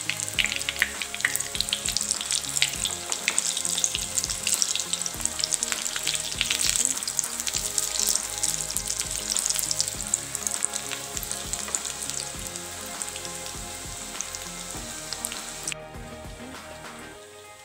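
Breaded beef cutlets shallow-frying in hot oil in a pan, a steady sizzle thick with sharp crackles. The sizzle cuts off abruptly near the end.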